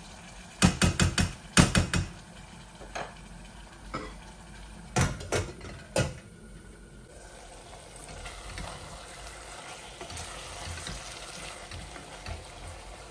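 Wooden spatula knocking and scraping in a stainless steel saucepan as dried fish is stirred and fried. There is a quick run of knocks about a second in, more knocks a few seconds later, and a glass pot lid set on near the middle. After that comes a faint, steady sizzle of frying.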